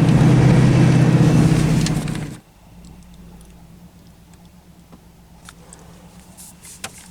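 Pickup truck engine running hard through snow, then dropping suddenly about two and a half seconds in to a quiet, steady low hum with a few faint clicks.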